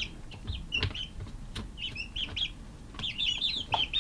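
Young chickens peeping: scattered short chirps, then a quick run of rapid peeps near the end, with a few light taps among them.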